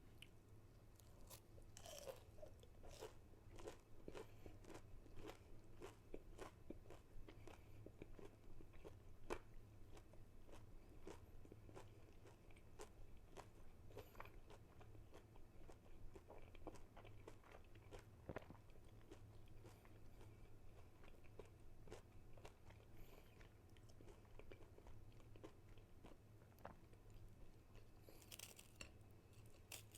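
Close-miked chewing of crispy fried chicken nuggets: crunchy crackles as the breading is bitten and chewed, densest in the first half and sparser later. A short rustling noise comes near the end.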